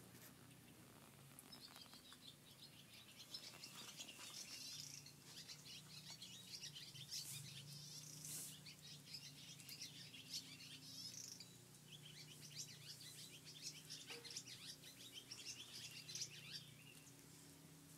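Faint birds chirping in runs of rapid high twitters, over a faint low steady hum.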